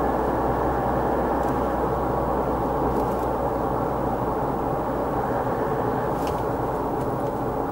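Steady road and tyre noise with a low engine drone, heard from inside a car's cabin while driving along a paved highway.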